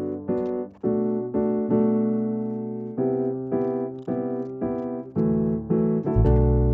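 Background music: a piano plays chords struck repeatedly, about three a second, each fading before the next. A chord is held longer about two seconds in, and a deep bass comes in near the end.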